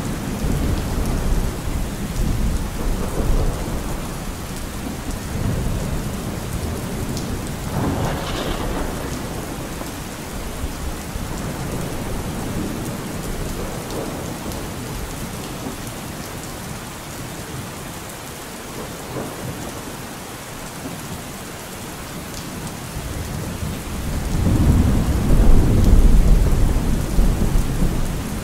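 Steady rain with low rolling thunder, the loudest rumble swelling up about 24 seconds in and easing off near the end.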